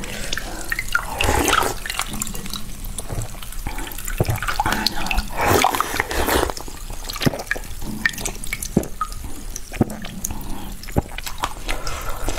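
Biting into and sucking on a lump of frozen cola slush ice: wet crunching and slurping, with many short sharp cracks.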